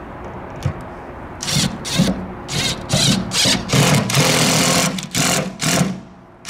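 Cordless drill driving screws into a tankless water heater's mounting flange, run in about nine short bursts with one longer run of about a second near the middle.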